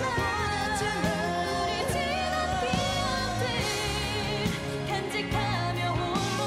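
Female pop vocals sung live into handheld microphones over instrumental backing, with long held, wavering notes.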